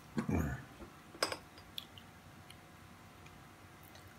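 A toddler eating: a brief vocal sound at the start, then one sharp click about a second in and a few faint ticks of chewing and fork handling.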